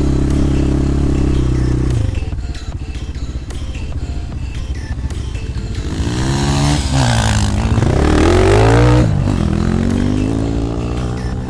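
250 cc enduro motorcycle engine: holding a steady note, dropping to a rough, chattering idle about two seconds in, then revving up and falling back twice, with the pitch climbing again near the end.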